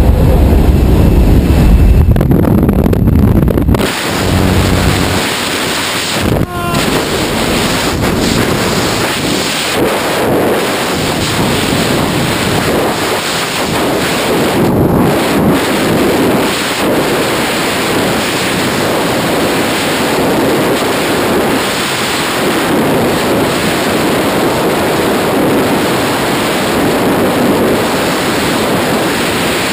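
The jump plane's engine and propeller drone in the first few seconds. At the exit, about four seconds in, this gives way to a loud, steady rush of freefall wind buffeting the camera microphone during a tandem skydive.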